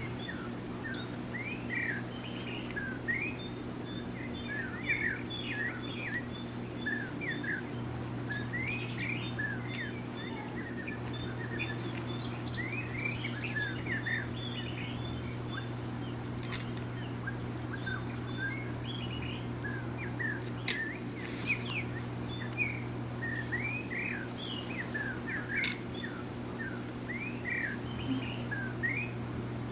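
Small birds chirping continuously, many short quick calls overlapping, over a steady low hum.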